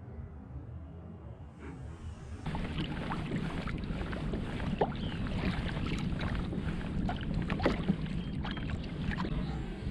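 Water splashing and dripping around a kayak being paddled, with many small quick splashes. It starts abruptly about two and a half seconds in, over a quieter wash of water.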